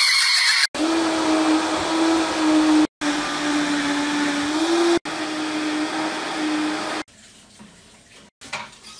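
Kitchen countertop appliance motor, blender-like, running loudly with a steady hum, broken by two brief drops to silence and stopping about seven seconds in. A short loud burst of noise comes at the very start.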